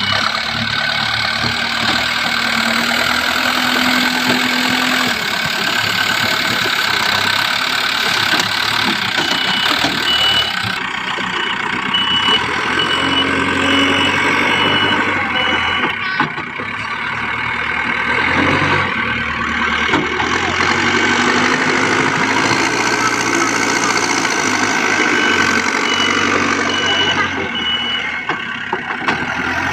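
Diesel engines of a JCB 3DX backhoe loader and tipper trucks running steadily, with a reversing alarm beeping in even pulses for a few seconds at the start, again about ten seconds in, and near the end.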